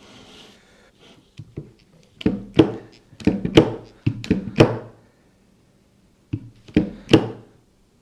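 Long handle of a Temco hand-pumped hydraulic cable crimper being pumped. A run of about eight knocking strokes starts about two seconds in, and three more come near the end, as the dies close on a lug terminal on 6-gauge battery cable.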